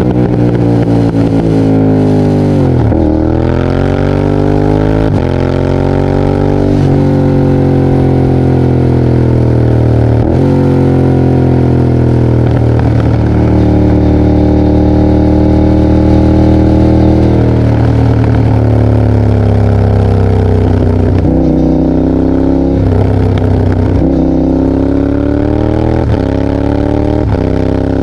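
Yamaha Tracer 7's 689 cc parallel-twin engine through an open GPR exhaust with its dB killer removed, loud. It accelerates hard through the gears with quickshifter upshifts: the pitch climbs and then drops sharply about four times. It holds a steady pitch for several seconds, then slows, with the revs falling and jumping back up in short blips near the end.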